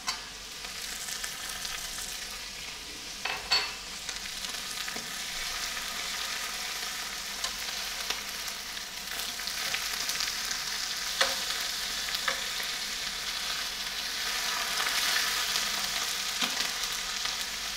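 Chicken legs and chopped onion sizzling in oil in a frying pan over high heat: a steady hiss. A few sharp clicks come as metal tongs knock against the pan while the pieces are turned.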